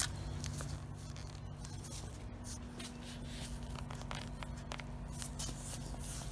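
Faint scattered scrapes and clicks of an aluminium sliding-door frame being handled as its bottom slide rail is worked loose by hand, over a steady low hum.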